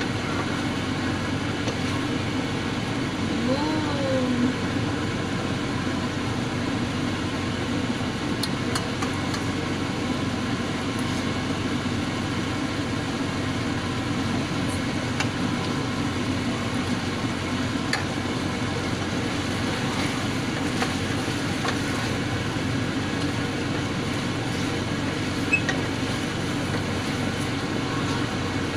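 A steady rushing hum throughout, with a few light knocks of a wooden spatula against a stainless steel pot as chicken adobo is stirred.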